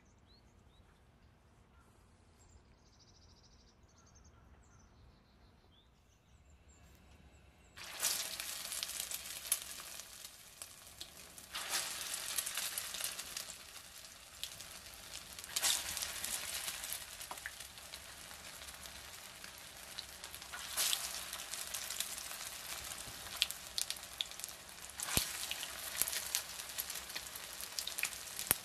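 Near silence at first; about eight seconds in, egg-white-coated potato kofta patties start sizzling in hot vegetable oil in a frying pan. The sizzle swells anew about five times as each patty is laid into the oil.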